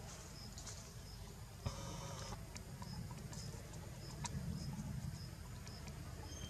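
Faint forest ambience: a short high chirp, from an insect or bird, repeats about twice a second over a steady low rumble, with a few scattered clicks and a brief buzzy sound about two seconds in.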